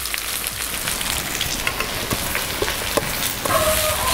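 Freshly added sliced onions sizzling in hot oil in an aluminium kadai, a steady hiss dotted with small pops. A metal slotted spoon stirring them adds scrapes and knocks against the pan, and a brief steady tone comes near the end.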